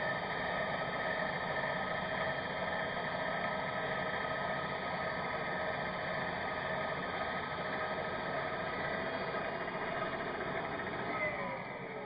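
DEWALT 12-inch compound miter saw's motor running steadily at full speed with its new Diablo blade spinning. Near the end the motor is switched off and its pitch falls as the blade spins down.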